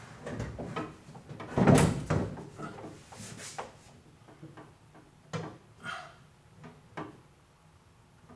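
Gas tank straps and hardware being tried in place under the car: a series of clunks and knocks, the loudest about two seconds in, then a few lighter clicks.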